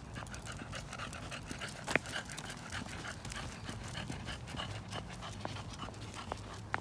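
A small dog panting rapidly and evenly as it trots on a leash, with a sharp click about two seconds in.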